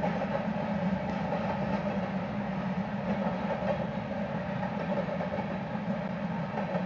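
Freight train of covered hopper cars rolling steadily past, a continuous rumble of wheels and car bodies on the rails.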